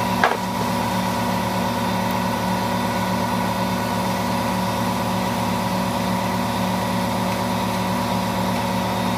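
Steady mechanical hum of a running machine, with a single click just after the start.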